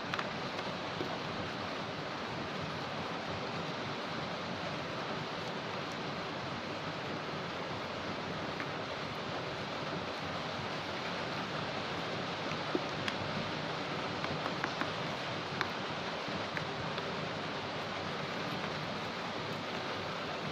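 Steady hiss of heavy rain, with a few faint clicks and taps in the middle.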